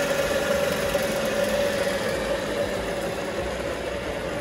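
Paragon P44R marine reduction transmission running on a test stand after an overhaul with the correct rotation-specific gear set: a steady mechanical hum with a gear whine, getting a little quieter as the speed is brought down from 1800 RPM.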